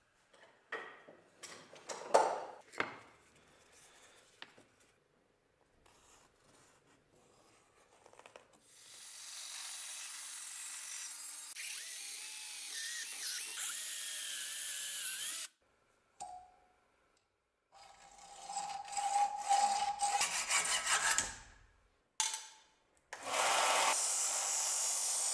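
Knocks and clatter of tools being handled, then a power drill boring through the steel tang of a knife, running steadily for about seven seconds. A second, less even stretch of drilling follows. Near the end a belt-and-disc sander runs steadily as a small metal pin is worked at its disc.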